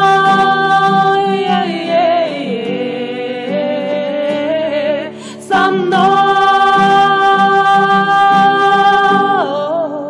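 Two women singing in harmony to a strummed acoustic guitar. They hold a note on the closing word «мной», sing a wavering wordless run that dips lower, take a short breath about halfway, then hold a second long note that falls away near the end.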